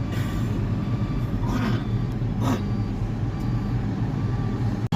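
A steady low engine drone running without change, with a few brief rustles or scrapes over it.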